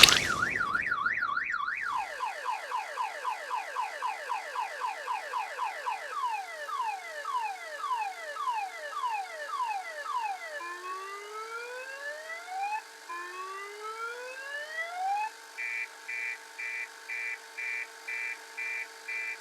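Electronic car alarm cycling through its tones: a fast warble, then a long run of quick falling sweeps, then slower rising whoops, and finally steady beeping about twice a second.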